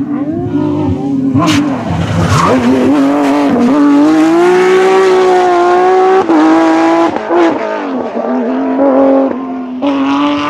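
Porsche 911 GT3 rally car's flat-six engine at high revs. Its pitch climbs over the first few seconds, holds high and steady for a couple of seconds, then breaks briefly twice and settles to a lower note near the end. A sharp crack comes about one and a half seconds in.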